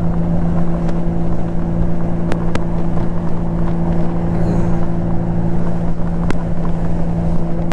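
Honda Gold Wing GL1500's flat-six engine running steadily at highway cruising speed, an even drone mixed with wind and road noise. A few faint clicks.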